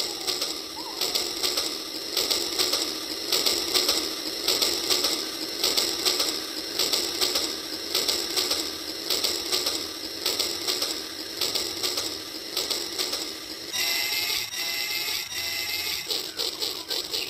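Toy train running, its geared motor and wheels giving a fast, steady rhythmic clicking. About fourteen seconds in, a warbling tone joins for a few seconds.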